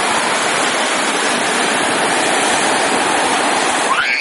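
Steady, even rush of running water. Just before the end a short high-pitched sound starts with a quick rise in pitch.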